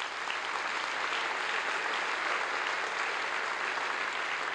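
Large audience in a big hall applauding steadily.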